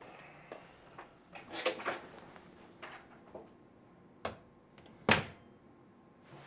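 A door being opened and shut. There are a few soft knocks and rustles, then a sharp click about four seconds in, and the loudest knock about a second later.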